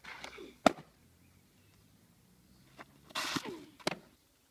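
Two softball drop-ball pitches: each starts with a short rush of noise from the pitcher's delivery and ends about half a second later in a sharp pop as the ball smacks into the catcher's mitt. The first pop is the loudest.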